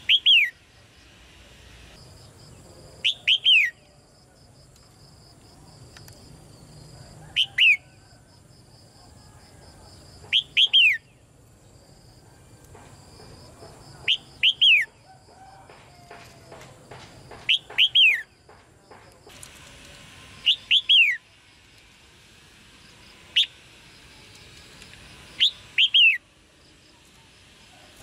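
Red-whiskered bulbul giving short, sharp chattering calls, each two or three quick falling notes, repeated about every three seconds.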